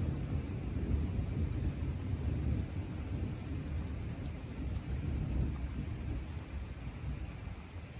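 Thunder rumbling long and low over a steady hiss of rain during a summer thunderstorm; the rumble eases a little near the end.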